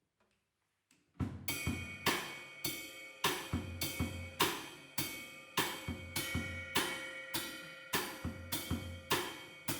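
Jazz drum kit playing alone, coming in about a second in with a steady beat of about two strokes a second on snare, bass drum and ringing cymbals: the drum intro to the tune.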